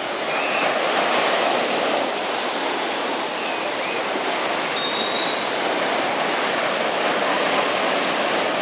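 Small ocean waves breaking and washing up the beach: a steady rush of surf, with a few faint high chirps.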